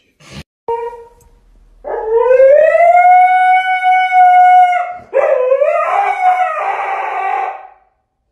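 A husky howling: one long howl that rises and then holds steady for about three seconds, followed by a second, wavering howl.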